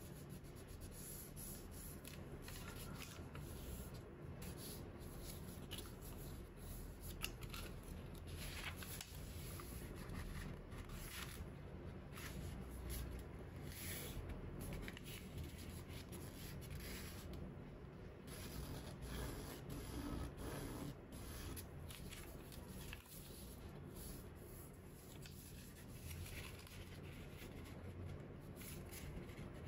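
Faint, intermittent rustling and crinkling of a sheet of origami paper being folded by hand, with fingers rubbing along the folds to crease them.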